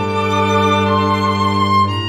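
Background music of bowed strings holding long, slow notes, with the chord changing near the end.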